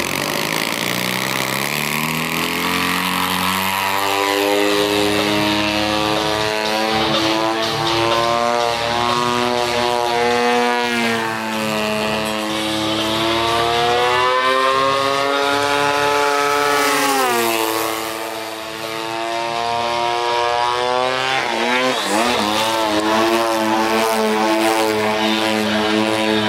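Radio-control aerobatic model airplane's engine and propeller throttling up from idle for takeoff, the pitch climbing over the first few seconds. The engine then runs at flying power, its pitch rising and falling with throttle and passes. It briefly throttles back partway through, pitch and loudness dropping, before powering up again.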